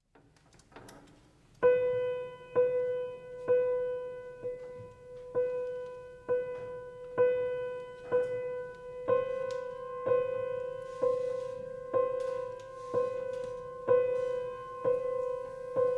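Piano repeating a single low-middle note about once a second, each strike left to ring and fade like a tolling bell. From about nine seconds in, a higher note sounds with each strike.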